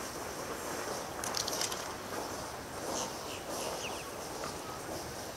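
Steady outdoor background noise with a few faint, short, high-pitched chirps or rustles; no gunshot.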